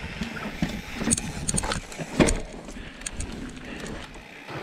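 Mountain bike rolling along a dirt singletrack: tyre noise on the dirt with the chain and parts rattling and clicking over bumps, and a sharp knock a little past two seconds in.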